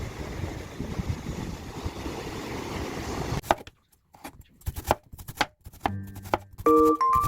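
A steady rushing hiss that cuts off about halfway through, then a knife chopping on a cutting board in uneven strokes, with light keyboard background music coming in near the end.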